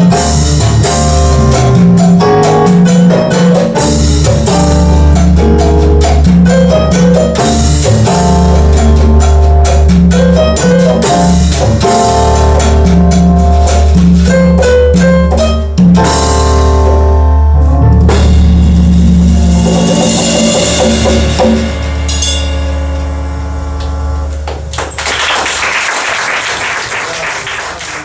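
Live band playing with electric bass, keyboard, congas and a drum kit with cymbals. The piece winds down in the last seconds with a final chord ringing out, and applause starts near the end.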